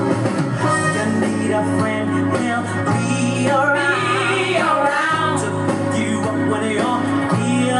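Gospel music: a band playing under a singer's wordless, wavering vocal runs, which are strongest about halfway through.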